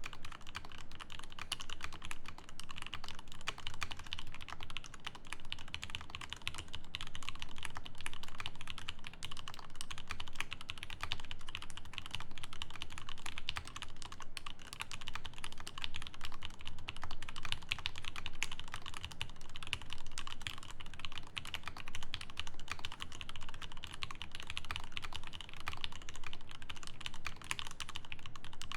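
Alicia custom mechanical keyboard with factory-lubed Ultramarine switches in an acrylic plate and GMK keycaps, typed on quickly and continuously: a dense, even stream of keystroke clacks.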